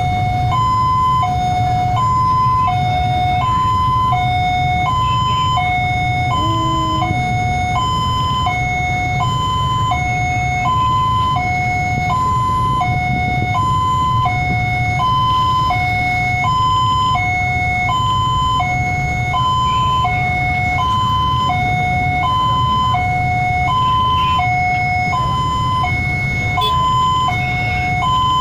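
Railway level-crossing warning alarm sounding with the barrier down: an electronic two-tone signal alternating high and low, about one high-low cycle a second, steady and unbroken, over a steady low rumble.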